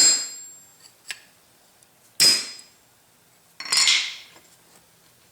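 Three sharp metal-on-metal taps, each with a brief high ring, a second or two apart: a hammer driving a steel roll pin down into a shaft.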